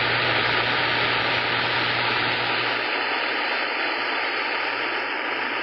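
Steady hiss of static from a CB radio's speaker between transmissions, with no voice coming through.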